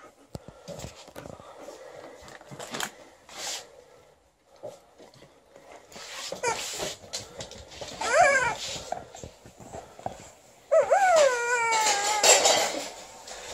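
Alaskan Malamute vocalizing: a few short falling whines about two-thirds of the way in, then a longer, louder wavering whine-howl near the end, amid light clicks and rustling of play.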